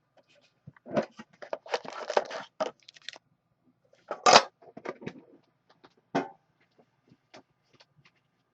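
Hockey card packaging being torn open and crinkled, with cards and wrapper handled in irregular rustling bursts; the loudest is a sharp crackle about four seconds in.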